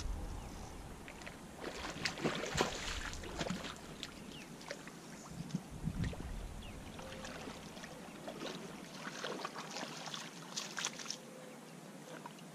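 Water splashing and sloshing at the bank as a hooked channel catfish is played in close to shore, with irregular sharp splashes and clicks clustered in a few bursts.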